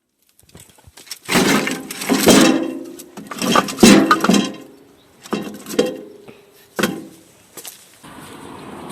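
Hard objects clattering and clinking with a short ringing after each, in two longer bursts then three shorter ones.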